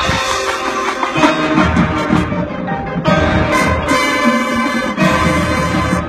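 High-school marching band playing on the field, brass loudest, in held chords that change about three and five seconds in.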